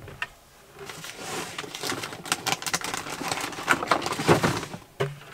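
Containers and jars clattering and knocking together as someone rummages through a storage cupboard in a van's interior, an irregular run of small clicks and rattles.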